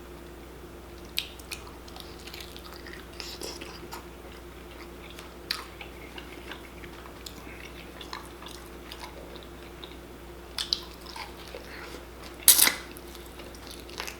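A person chewing and eating close to the microphone, with scattered short wet mouth clicks and a louder smack near the end, over a faint steady hum.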